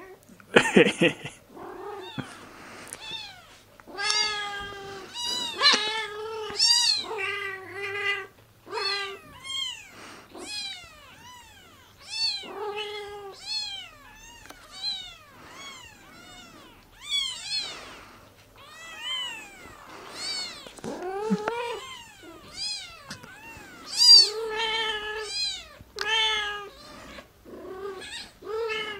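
Newborn hairless kittens crying loudly, a string of short, high mews one after another, often several at once, as the mother cat treads over them. A brief rustle comes about a second in.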